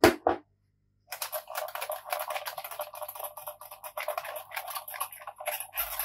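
Cloth wiping back and forth over the glossy plastic top cover of a PlayStation 3 fat console, an uneven scrubbing rustle that starts about a second in. It follows two brief sharp sounds at the very start.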